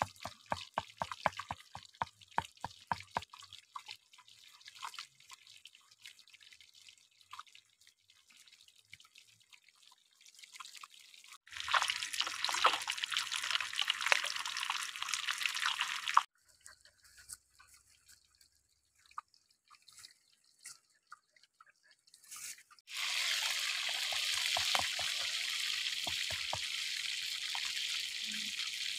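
Fish frying in oil in a wok: a quick run of pops and spatters at first, then scattered crackles, and two long stretches of steady sizzling hiss, the second starting a few seconds before the end.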